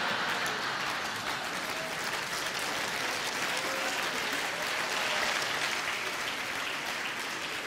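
Audience applauding, a dense steady clatter of many hands clapping that eases off slightly near the end.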